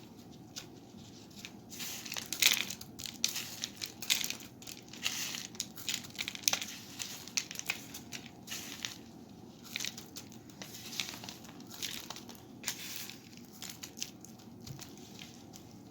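Loose bird seed rustling and crunching in irregular bursts as a sticky pine cone is rolled in it and pressed down into the seed.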